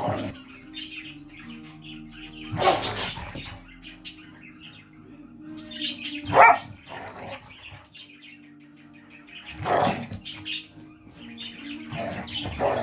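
Two dogs play fighting, giving bursts of growling and barking a few seconds apart, loudest about six seconds in, with a caged pet bird chirping between the bursts.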